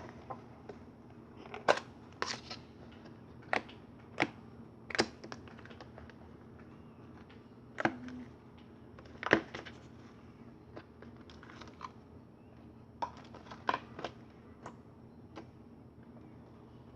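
Slime ASMR: slime being squished and poked by hand, giving sharp, irregular pops and clicks, about a dozen spread over the stretch.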